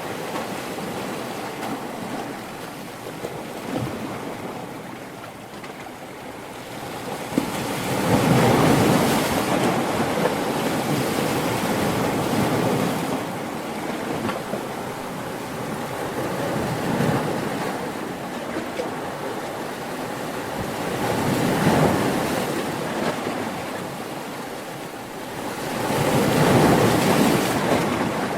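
Ocean surf: waves break and wash in one after another, a continuous rushing that swells and eases every several seconds. The biggest breakers come about eight seconds in and near the end.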